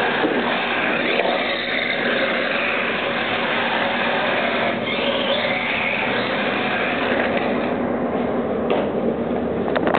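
Steady whirring of a small 1:24-scale RC drift car's electric motor, with a higher whine that swells twice.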